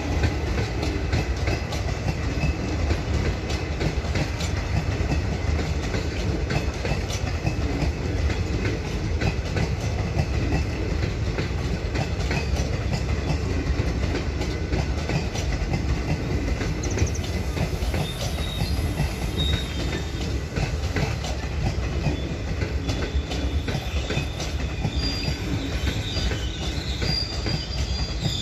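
Passenger coaches of an Indian Railways express rolling past at speed: a steady rumble with the rapid clatter of wheels over rail joints. A thin, high wheel squeal joins in over the last third.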